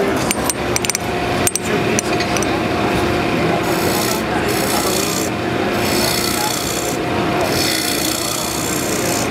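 Benchtop wood lathe running with a steady hum while a carbide-insert turning tool scrapes across the spinning wooden blank. There are a few sharp taps in the first couple of seconds; from about three and a half seconds in, a hissing scrape comes and goes in several cutting passes. This is a finishing cut with the round, negative-rake carbide cutter, which leaves a very smooth surface.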